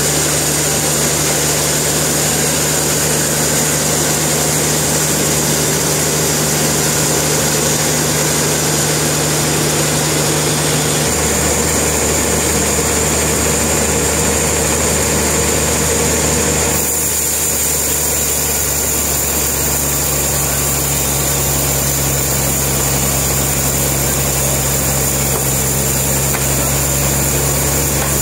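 Sawmill machinery running: a loud, steady engine hum that changes in tone about eleven seconds in and again a few seconds later.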